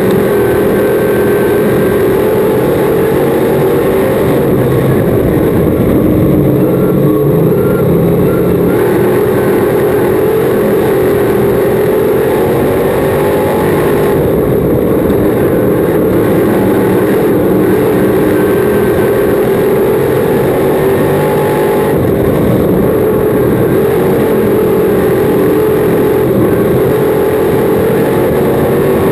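V8 crate engine of a dirt-track modified racing, heard from inside the cockpit: a loud, continuous engine drone whose pitch wavers slightly up and down as the throttle is worked through the laps.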